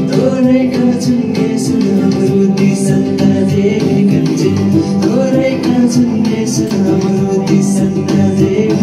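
Music: a song with singing over a steady beat and sustained accompaniment.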